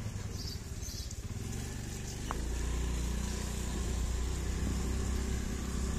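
Motorcycle engine running as it is ridden, a low steady rumble that grows louder about two and a half seconds in.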